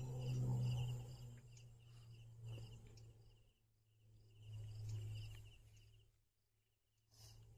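An insect chirping in short, evenly pulsed trains at one steady high pitch, repeating with brief pauses. Under it, a low hum swells at the start and again about five seconds in.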